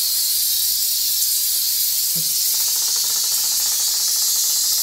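Ariete 4164 Multi Steam System steam cleaner's handheld unit blowing steam through a brush nozzle onto a wall: a steady, even hiss.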